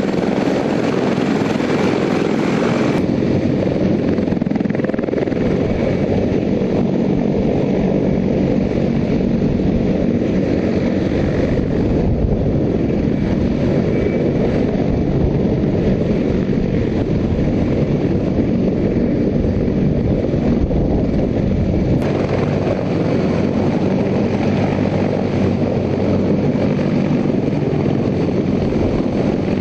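Sikorsky CH-53E Super Stallion, a three-engine heavy-lift helicopter, running with loud, steady rotor and turbine noise. The sound changes abruptly about three seconds in and again about two-thirds of the way through.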